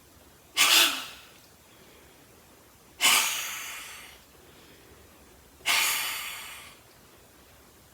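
Three forceful breaths pushed out through the open mouth, each a sudden breathy 'haa' that fades away: the lion's breath of Simha Mudra (lion pose), a yoga exercise for the throat. The first is short; the next two last about a second each, a little over two seconds apart.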